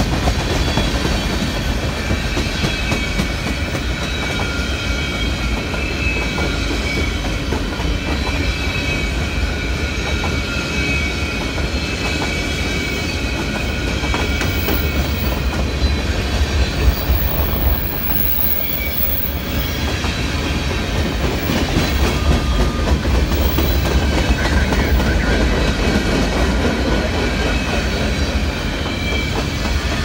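Freight train of open-top hopper cars rolling past close by: a steady heavy rumble with wheels clicking over the rail joints, and thin high squealing tones from the wheels above it.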